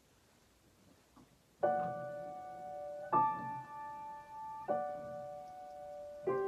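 Piano music: slow, sustained chords, a new one struck about every second and a half, after a near-silent first second and a half.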